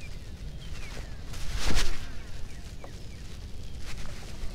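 Wind buffeting the microphone of a body-worn camera as a low, uneven rumble, with one louder rush of noise about a second and a half in.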